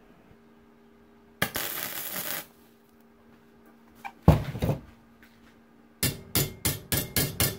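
Hammer tapping on steel pieces held in a bench vise, about four quick strikes a second from about six seconds in, closing up the gap between tack-welded pieces. Before that there is a one-second burst of hiss about a second and a half in and a single thump about four seconds in.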